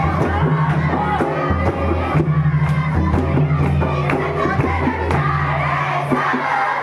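Crowd of young people singing and chanting together to a drum beat, about two beats a second.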